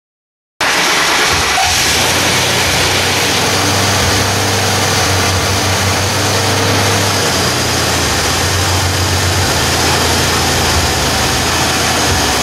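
Car engine idling with a second alternator fitted, heard up close: a steady, loud rushing noise over a low hum. It cuts in suddenly about half a second in.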